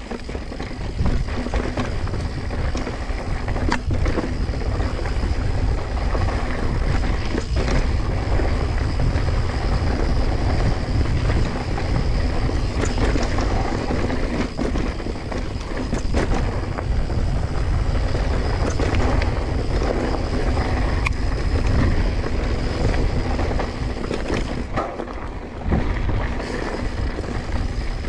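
Mountain bike rolling fast over rocky dirt singletrack, wind rumbling on the microphone, with the tyres crunching and the bike rattling and knocking over rocks throughout. The rumble eases briefly a few seconds before the end.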